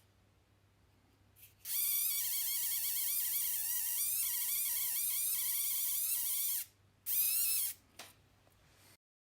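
WPL D12 steering servo whining with a wavering, stuttering pitch for about five seconds, then a shorter burst and a click near the end: the strange servo noise that the owner suspects is a defect.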